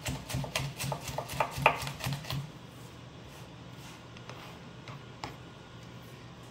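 Kitchen knife chopping vegetables on a cutting board in quick strokes, about four a second, stopping about two and a half seconds in; a couple of single light knocks follow.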